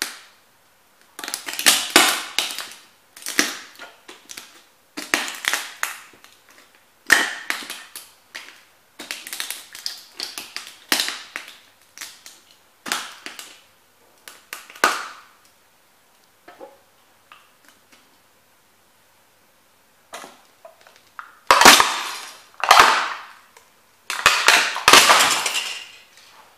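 Rubber boots stomping on small model train houses, crushing them: a series of sharp cracks and crunches as the little buildings break, in two runs with a pause of a few seconds in the middle.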